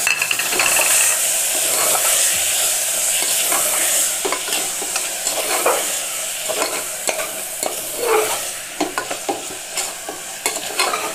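Masala with freshly added curd sizzling in a pressure cooker while a steel spoon stirs it, scraping and clicking against the pot. The sizzle is loudest over the first few seconds, then eases while the spoon clicks go on.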